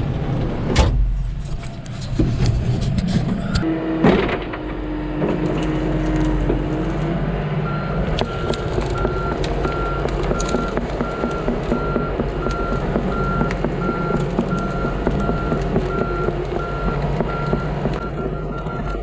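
Komatsu PC88 excavator's diesel engine running under load, with sharp knocks about one and four seconds in and a short steady whine. From about eight seconds in, its travel alarm beeps steadily, about twice a second.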